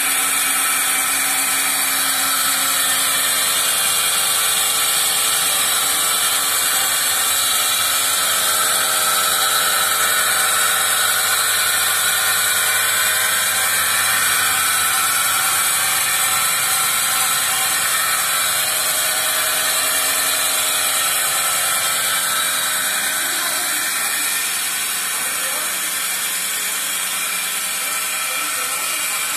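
Milking machine's vacuum pump running steadily with a loud airy hiss, a little quieter in the last few seconds.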